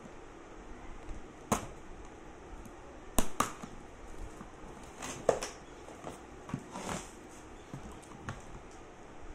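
A cardboard box being opened with a metal hand tool: half a dozen sharp clicks and snaps, the loudest about three seconds in, with some scraping of cardboard.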